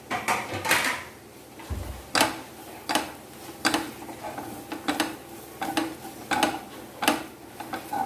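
A spoon scraping and knocking against a cooking pan in repeated strokes, about one every 0.7 seconds, as coconut pieces are stirred into a fry of onions and spices.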